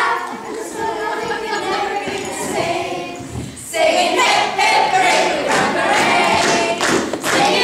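Group of children's and adults' voices singing together on stage, the singing getting louder about four seconds in.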